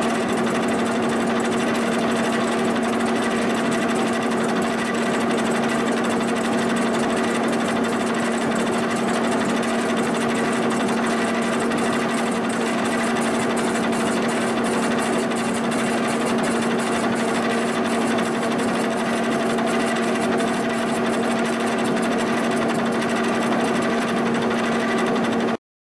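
Milling machine running steadily, its spinning cutter face-milling the port flanges of a cast-iron exhaust manifold flat; an even machine hum with a constant low tone that holds without change.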